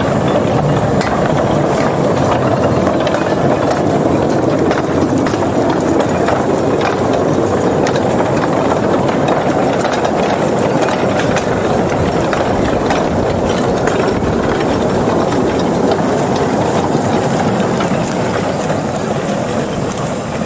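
Empty narrow-gauge slate wagons pushed by hand along the rails: their steel wheels rolling with a steady rumble and scattered clicks and clanks, easing a little near the end.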